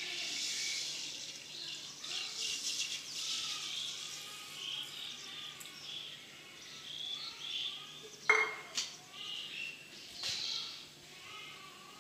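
Granulated sugar pours from a bowl into water in a metal pan, a hiss that fades within the first second or two. After it, birds chirp faintly in the background, and a single sharp clink of a utensil comes about eight seconds in.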